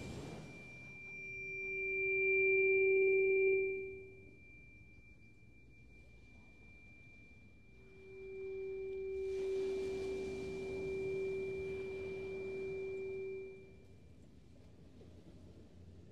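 Tuning fork ringing a pure low tone, sounded twice. It swells up about a second in and fades by about four seconds, then swells again a little past halfway and rings on until near the end, with a faint high overtone ringing steadily above it.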